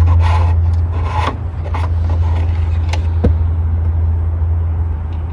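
Tecumseh lawnmower engine running steadily on a shot of starter fluid. The owner suspects a dirty carburetor.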